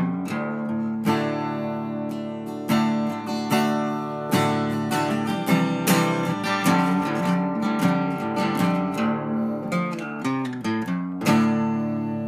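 Background music: acoustic guitar being strummed and plucked, with a final chord about eleven seconds in that rings out.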